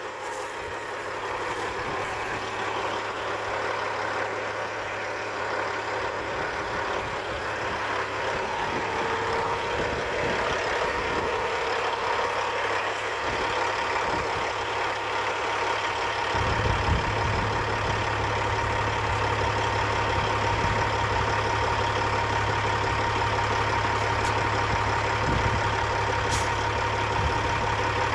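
Engine idling steadily, with a steady whine and a low hum that grows stronger a little past halfway through.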